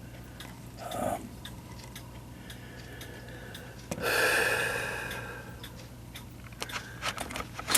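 Mechanical clock ticking steadily as a row of faint, evenly repeating clicks, with a breathy rush of noise lasting about a second and a half, about four seconds in.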